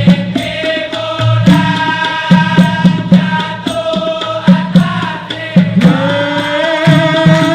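Dikir barat ensemble performing: a sung melodic line with long held, ornamented notes over hand drums beating a steady rhythm.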